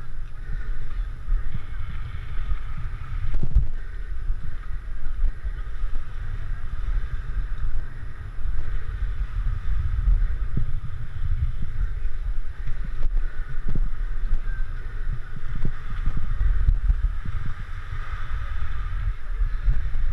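Inline skate wheels rolling over a paved promenade, with wind buffeting the action camera's microphone: a steady low rumble with scattered knocks and a constant hiss above it.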